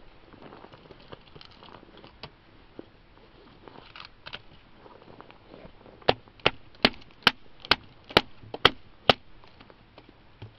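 A mallet striking a blade batoned into an upright stick of wood on a chopping stump: about ten sharp knocks, a little over two a second, starting about six seconds in as the stick splits. Before that, only faint handling and rustling.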